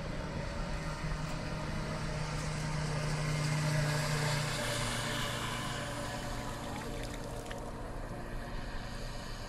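Znetix RC racing powerboat running at speed past the listener: its motor hum with hissing spray swells to its loudest about four seconds in, then drops in pitch as it passes and moves away.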